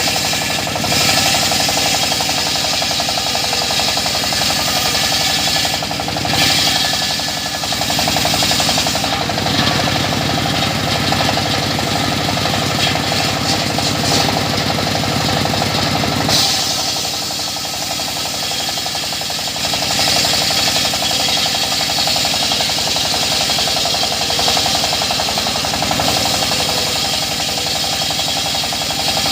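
Circular sawmill (mesin serkel) running loud and steady with a rapid, even knocking pulse. The sound changes briefly about six seconds in, and its low end thins out for a few seconds from about sixteen seconds in.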